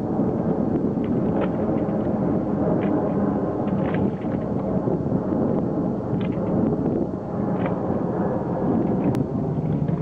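Wind rumbling steadily on the microphone, with faint short higher sounds scattered through it.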